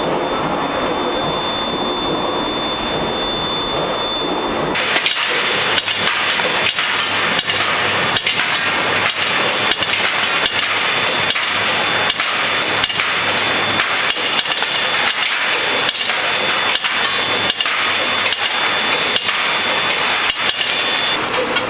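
Skew rolling mill running, rolling a red-hot steel bar into balls between its spiral-grooved rolls: loud steady machine noise with a thin high whine. About five seconds in, repeated sharp metallic knocks, roughly two a second, come in over the noise.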